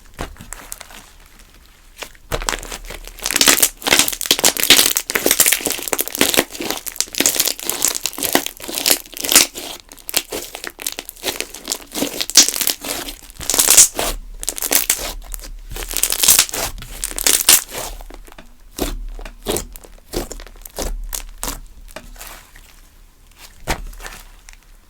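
Thick glossy slime being squished, stretched and folded by hand, giving a dense sticky crackle of rapid pops and clicks. It starts about two seconds in and thins to scattered pops near the end.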